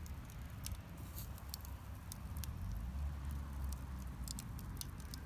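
Wood campfire crackling, with irregular small sharp pops over a steady low rumble.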